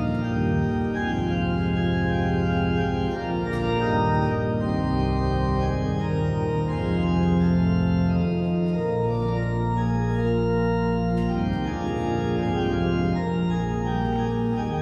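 Church organ playing slow, sustained chords that change every few seconds.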